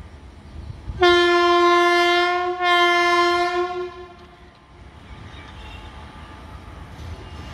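Electric locomotive's horn sounding two long blasts, the first starting about a second in and the second following after only a short break, one steady pitch. A low rumble of the approaching train runs underneath.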